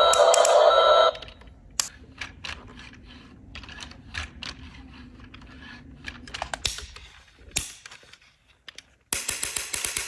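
A loud electronic tune cuts off about a second in, followed by scattered sharp plastic clicks and taps from a toy excavator being handled. About nine seconds in, a fast run of rapid clicking starts.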